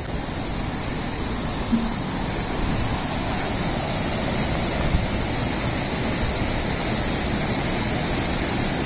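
Waterfall pouring: a steady, even rush of water that grows a little louder over the first few seconds and then holds.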